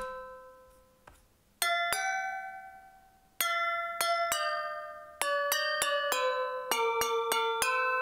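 Bell-like sampler instrument built from recordings of a finger flicked against a champagne glass, playing a short melody through soft clipping. About a dozen pitched notes ring and fade, spaced out at first and then coming quicker. The soft clipping makes them sound a lot more compressed.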